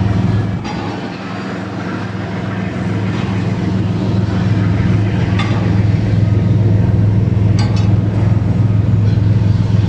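Fast patrol boat's engines running at speed: a steady deep drone over a rushing noise, dipping about a second in and then slowly building louder again.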